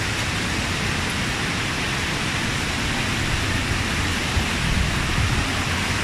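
Steady rush of a rocky mountain stream running over boulders and small cascades near a waterfall, with a low rumble underneath.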